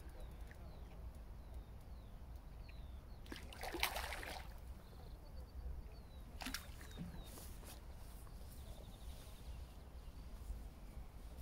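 Faint open-air ambience by a pond: small birds chirping on and off over a steady low background rumble. A short burst of noise comes about four seconds in, the loudest thing here, and a couple of sharp clicks follow a little later.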